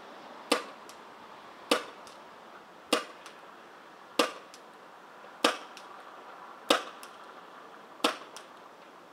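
Tiberius T9 CO2 paintball pistol firing seven single shots at an even pace, about one every second and a quarter, each sharp pop followed by a faint click. It is running on a chilled, nearly spent CO2 cartridge that is expected to give out soon.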